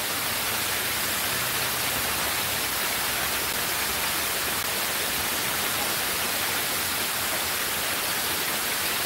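Water spilling steadily down the stepped tiers of a cascade fountain, a constant rushing hiss.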